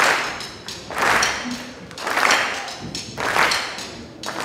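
Percussion ensemble striking wooden stools with drumsticks in unison, one loud accented hit about once a second, each echoing in the hall.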